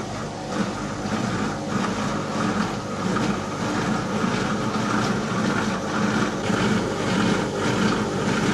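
Washing machine running with a steady hum.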